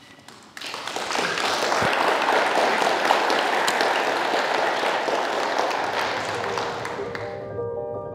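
Audience applauding: a dense patter of many hands clapping starts about half a second in and fades out near the end. Soft mallet-percussion music, vibraphone-like notes, comes in under it near the end.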